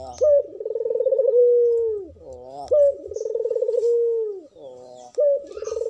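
Barbary dove (ringneck dove, the Indonesian 'puter') cooing in full song, a bird in breeding condition. Each phrase is a short sharp note followed by a long rolling, vibrating coo that falls away at its end. The phrase repeats about every two and a half seconds, a little over twice in this stretch.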